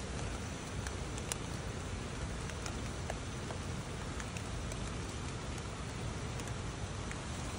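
Steady rain falling on leaves, with a few sharp ticks scattered through it, the loudest about a second in.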